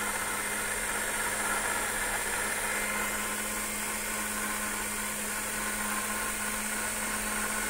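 Oxone noodle maker's electric motor attachment running steadily: an even hum with a hiss over it, not changing in speed.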